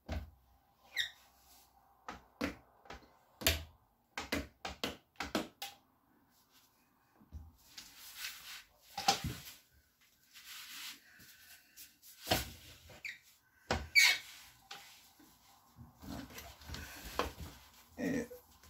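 Rubber squeegee drawn across the wet glass of an oven door, squeaking and scraping in a run of short strokes, then longer swishing wipes, with a cloth rubbing the glass near the end.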